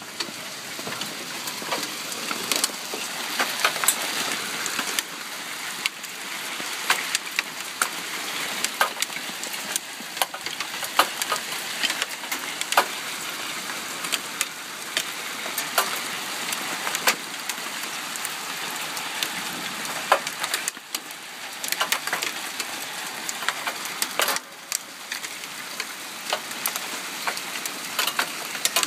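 Hail falling: a steady hiss with many sharp, irregular clicks of single hailstones striking.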